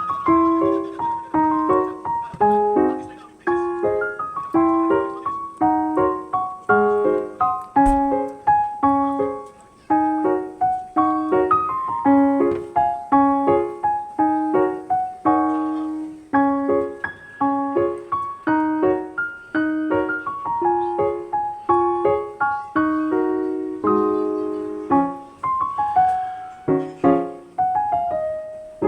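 Background piano music: a light melody of short, quickly fading notes.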